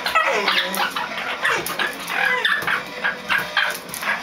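A bull terrier and a green parrot squabbling: a fast run of short squawks and calls, the dog's sounds mixed in with the parrot's, with no pause.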